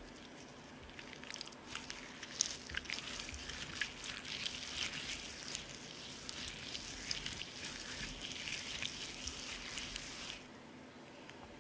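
Borax slime being rolled, pressed and rubbed by hand on a glass tabletop close to a microphone: a dense run of small sticky crackles and squelches. It builds after about a second and stops suddenly near the end. The slime is stiff and crumbling into bits.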